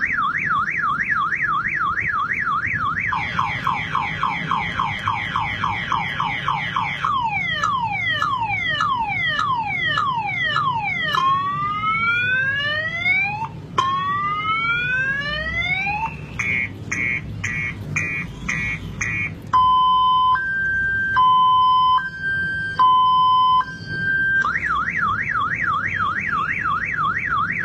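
Car alarm siren cycling through its tone patterns: a fast warble, a run of quick rising sweeps, then falling sweeps, two long rising whoops, about six short beeps, and a two-tone high-low alternation, before the fast warble starts again.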